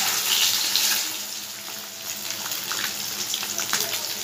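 Boiled eggs frying in hot mustard oil in a kadhai: a steady sizzle, louder for the first second or so, then settling, with scattered sharp crackles.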